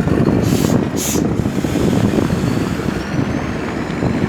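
Boat engine running with a loud, steady rumble, with two short hisses about half a second and a second in.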